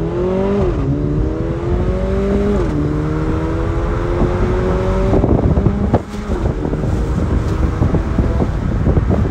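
Mercedes-AMG GLA 45's turbocharged four-cylinder engine under hard acceleration, heard from inside the cabin. The engine note climbs and drops with quick upshifts about a second in and again near three seconds in, then pulls up steadily. It eases off around six seconds, leaving road and wind noise.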